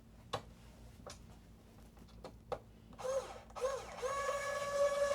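A few light clicks of small parts being handled, then a small electric screwdriver's motor whirs from about three seconds in: two short spurts, then a steady whine as it drives a screw.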